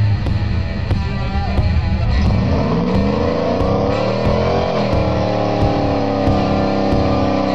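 Supercharged V8 of a 1999 Ford SVT Lightning pickup, with a Magnaflow exhaust, accelerating hard: its pitch climbs, dips briefly about five seconds in, then climbs again.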